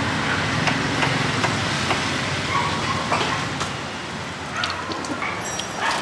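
Steady street traffic noise, with a few light knocks and clicks scattered through it.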